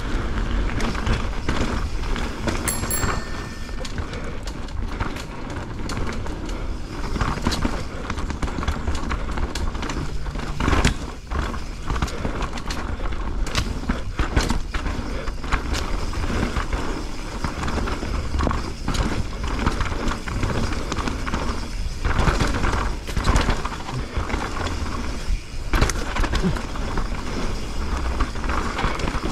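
Mountain bike riding down a dirt singletrack: steady tyre and wind noise with frequent knocks and rattles of the bike over bumps.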